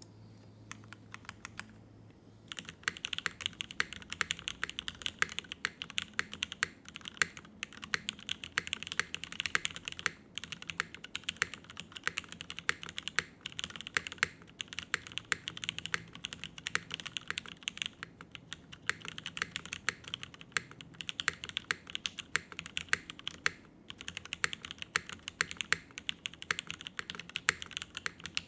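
Typing on a Jennie TKL custom mechanical keyboard with a full aluminium top-mount plate, Cherry Retooled Black linear switches and GMK doubleshot ABS keycaps. The keyboard is quiet for the first two and a half seconds, then gives a fast, continuous run of keystroke clicks with brief pauses.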